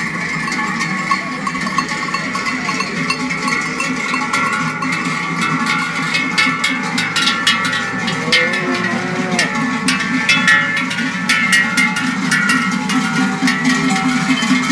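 Many large cowbells worn by a herd of cattle clanging continuously as the cows are driven past, the clanging getting denser about halfway through as more of the herd arrives.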